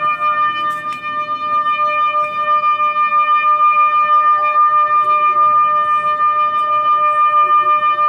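An electronic alarm sounding one loud, steady, high-pitched tone with overtones, holding the same pitch throughout, its loudness pulsing rapidly.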